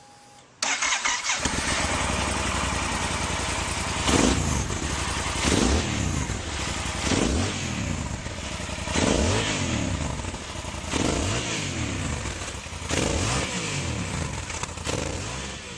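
Motorcycle engines running hard, the engine note sweeping up and down in pitch again and again about every one and a half to two seconds. It starts suddenly about half a second in and fades near the end.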